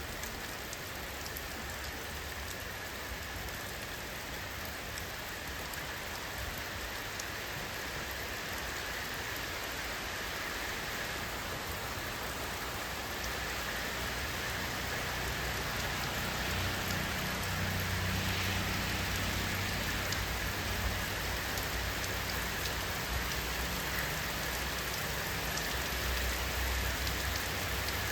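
Steady rainfall: an even hiss of many drops landing on surfaces. It grows a little louder past the middle, with a low rumble underneath in the second half.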